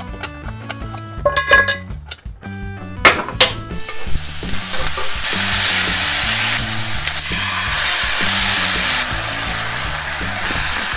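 A metal spoon clicking and scraping against a cast-iron skillet. Then, from about four seconds in, slices of pork belly sizzle steadily on a hot griddle pan. Background music plays under both.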